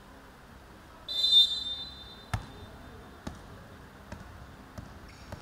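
A referee's whistle gives one shrill blast about a second long. Then a basketball bounces on the wooden gym floor five times, each bounce fainter and coming quicker than the last as the ball settles.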